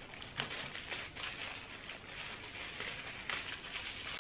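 Faint crinkling of thin plastic packaging and a few light clicks as a small plastic clip-on phone microscope is unwrapped and handled.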